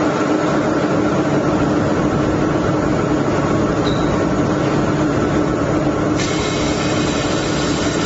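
A 1000 W automatic fiber laser welding machine running with a steady hum and noise. About six seconds in, a higher hiss joins and carries on.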